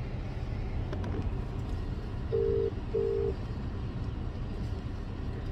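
Phone ringback tone heard over the phone's speaker: one double ring, two short low beeps a fraction of a second apart about midway through. A steady low car-cabin rumble runs underneath.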